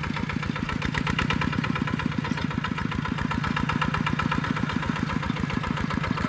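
Single-cylinder diesel engine of a Kubota two-wheel walking tractor running steadily under load while pulling a disc plow through a field, with an even, rapid beat of exhaust pulses.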